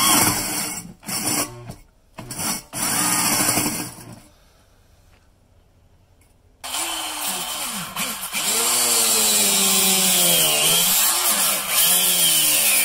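A few short noisy bursts, then about two seconds of near quiet, then a power tool runs steadily for about six seconds, its pitch sagging and recovering as it works under load.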